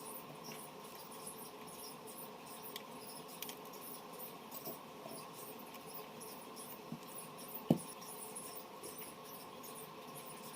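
Faint background: a steady hum with a rapid, high-pitched chirping over it, and a few small clicks, one sharper about three quarters of the way through.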